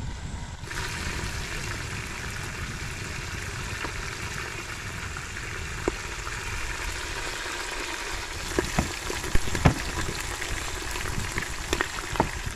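Small whole fish frying in hot oil in an aluminium pot: a steady sizzle that starts abruptly under a second in, with sharper crackling pops coming more often in the second half.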